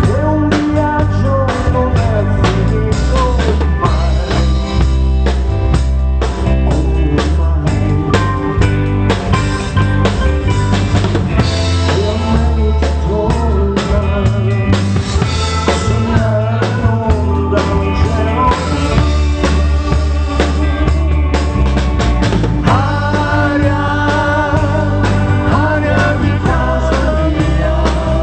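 Live pop band playing through a song at a sound check. The drum kit's kick, snare and rim hits are prominent over a steady bass line and melodic instruments.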